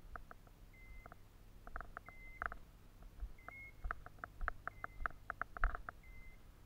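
Faint electronic beeps from a hunting dog's beeper collar: a short high beep about every second and a quarter, with quicker short pings between. Footsteps thud and rustle through dry bracken, the loudest a little before the end.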